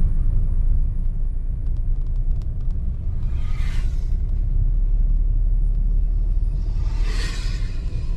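Steady low rumble of a moving vehicle's road and wind noise, with two brief whooshes, about three and a half and seven seconds in.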